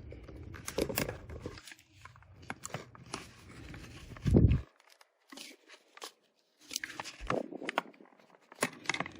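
Plastic snap clips of a Seagate Backup Plus Hub hard-drive enclosure clicking and creaking as the case's bottom seam is pried open, with a louder knock about four seconds in.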